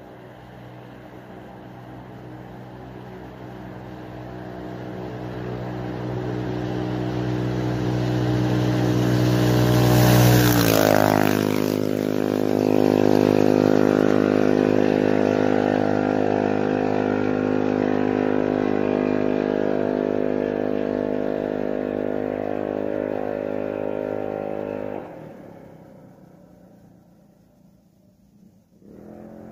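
Go-kart with a hopped-up small single-cylinder pushrod engine passing by at full throttle, around 6,700 rpm at about 60 mph. It grows louder on approach, and its pitch drops sharply as it passes about 10 seconds in. It keeps running hard at the lower pitch as it pulls away, then drops off sharply about 25 seconds in.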